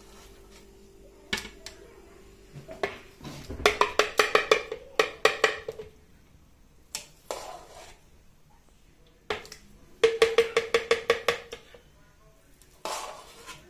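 A steel ladle rapping against the rim of a plastic blender jar to knock set cream curd off into it. There are two quick rattling runs of taps, about ten a second, the first a few seconds in and the second near two-thirds of the way through, with a few single knocks between.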